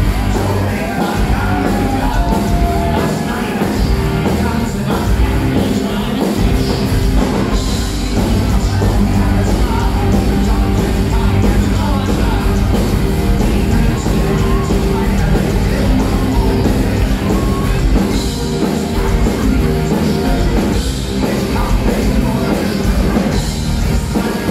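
Folk-metal band playing live at concert volume: distorted electric guitars, drums and a lead singer, heard from the crowd.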